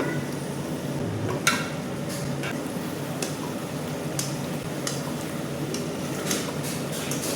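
Chicken curry frying in a kadhai as it is stirred: a steady sizzle, with a few sharp clicks of the spoon against the pan.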